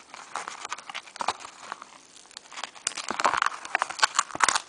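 Scratch-off lottery ticket being scratched off by hand: a run of dry scraping and crackling clicks, sparse at first and getting busier and louder about three seconds in.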